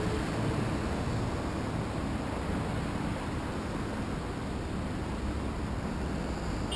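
Steady rush of wind and road noise picked up by a GoPro on a moving fixed-gear bicycle, with a low rumble underneath.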